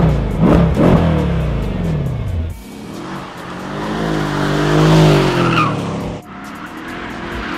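Mercedes-AMG E63's M157 5.5-litre twin-turbo V8 revved in several quick rises and falls with crackles from the exhaust. After a sudden cut about two and a half seconds in, the car is heard driven hard on a track, its engine note rising and falling with a brief tyre squeal. Near the end another engine note builds up.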